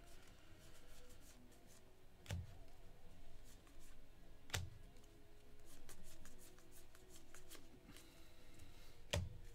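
Trading cards being handled and flipped through, faint rustles and ticks, with three sharp knocks on the table about two, four and a half, and nine seconds in.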